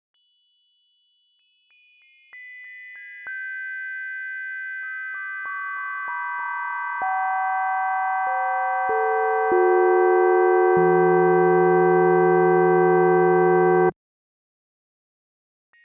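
Computer-synthesized partials of a bell's tone spectrum: steady pure tones switched on one after another, from the highest partial down to the low hum, building step by step into a louder sustained bell chord. The chord cuts off suddenly about two seconds before the end, and a new set of high tones starts right at the end.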